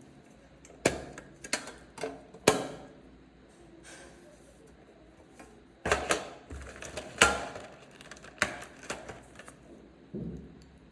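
Irregular sharp clicks and light knocks of small stationery pieces and their box being handled and set down, about a dozen in all, with a duller thump near the end.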